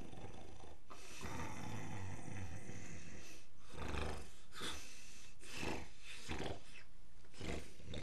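A woman snoring in rough, rasping strokes, which come short and quick, about two a second, from a little past halfway through.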